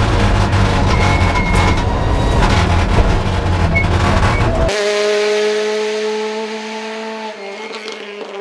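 Rally car engine at high revs with heavy road and drivetrain rumble, heard inside the cabin. About halfway through it cuts abruptly to a rally car's engine heard from the roadside, holding a steady high note as the car pulls away. Near the end the note steps down once and fades.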